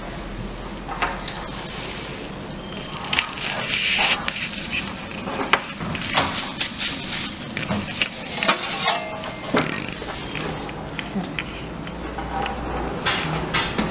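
Food-prep clatter at a sandwich counter: scattered clicks and knocks of gloved hands and utensils at the chopping board, busiest through the middle, over steady kitchen background noise.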